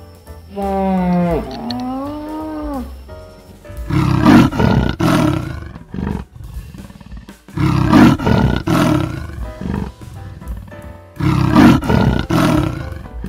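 A big cat roaring three times, each roar about two seconds long and loud, over background music.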